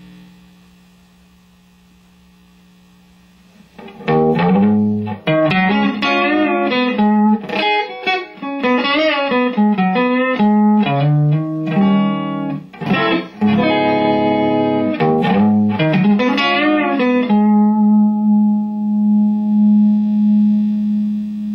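Electric guitar played through a homemade 10-watt tube amp (12AX7 preamp, EL34 output tube) into a Celestion speaker, starting after a few seconds of the amp's faint idle hum. A riff of single notes and chords follows, ending on a chord left ringing with a slow waver.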